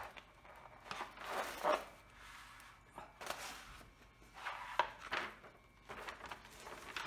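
Cover paper being peeled off the adhesive surface of a diamond painting canvas: short spells of paper rustling and crinkling, with a sharp click about five seconds in.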